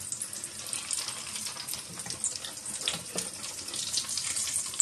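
Egg-coated potato cutlets sizzling as they shallow-fry in oil in a frying pan: a steady crackle full of small pops.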